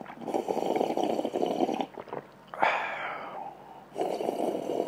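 A man breathing slowly and heavily right into a lavalier microphone: three long breaths, each a second or two long, with short pauses between, as an ASMR breathing test.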